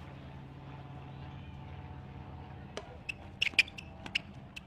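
Sounds of a tennis point on an outdoor hard court. A steady low hum runs for the first couple of seconds, then a quick run of sharp ticks and squeaks comes from the ball being struck and from court shoes, the loudest a close pair about three and a half seconds in.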